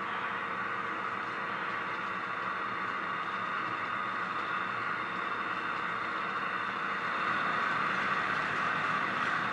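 HO scale model train running on the layout track: a steady hiss-like running noise from wheels on rail and the locomotive motors, getting a little louder about seven seconds in as the cars pass close by.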